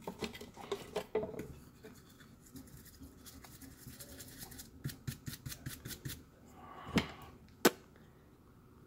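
Light, rapid scratching and clicking of a small tool scrubbing a car heater control circuit board with alcohol to clean it after resoldering. Near the end comes a rustle and then one sharp click.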